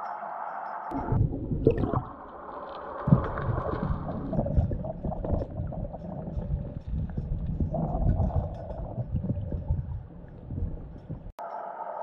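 River water churning and gurgling around a submerged camera: an irregular, low, rumbling underwater wash. A steady hum is heard before it, cutting off about a second in and returning after a sudden cut near the end.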